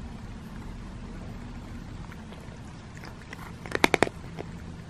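A cat licking close to the microphone: a quick run of five or six sharp clicks about four seconds in, over a low steady hum.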